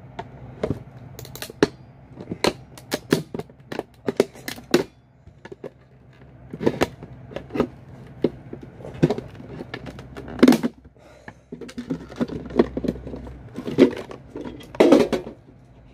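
Irregular clicks, knocks and clacks of a thin metal tool prying at a hard plastic retail security case, the plastic lid and case rattling as it is worked open.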